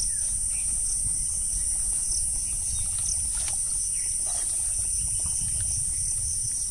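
Insects chirring in a steady high drone, with a second, pulsing note just below it, over a low rumble.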